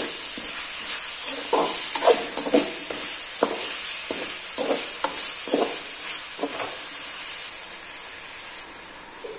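Onion-tomato masala sizzling in oil in a metal kadai as it sautés down, while a steel spoon stirs it with repeated scraping strokes against the pan. The stirring stops near the end and the sizzle goes quieter.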